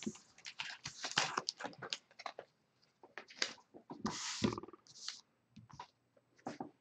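Magic: The Gathering cards being handled and fanned through by hand: a scatter of light clicks and paper rustles, with a louder short rustle about four seconds in.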